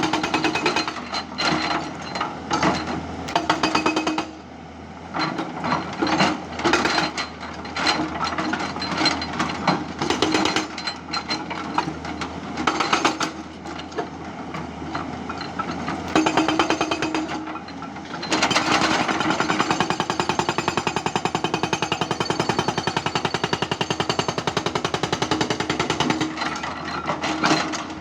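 Hydraulic breaker on a Tata Hitachi 200 excavator hammering with rapid repeated blows, in short bursts with pauses, then one long unbroken burst from about two-thirds of the way through. A steady low engine hum runs underneath.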